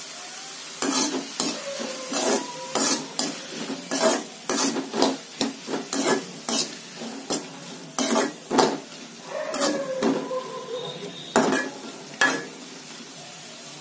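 Spatula scraping and knocking against an aluminium kadai while stir-frying vegetables, about one or two strokes a second, some with a short metallic ring, with a steady sizzle underneath. The stirring stops about twelve seconds in.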